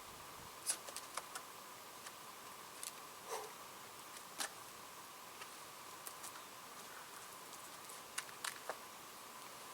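Scattered light taps and scuffs, some in quick clusters, of a climber's hands and shoes on a granite boulder, over a faint steady hum.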